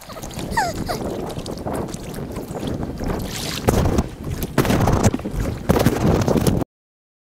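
Sped-up sound of kayaking: paddle strokes splashing in the water over wind on the microphone, the splashes coming louder in the second half. The sound cuts off suddenly near the end.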